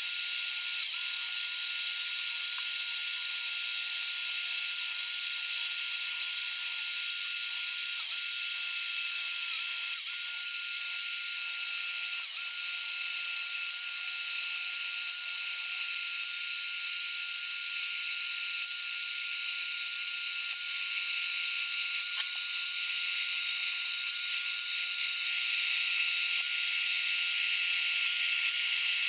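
A small power tool running continuously: a steady high whine over a loud hiss, growing slightly louder toward the end.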